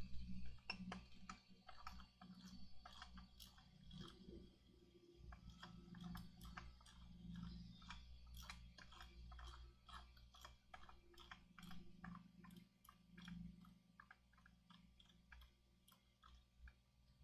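Faint, irregular clicking and tapping of small parts and tools being handled on a workbench, over a steady low hum.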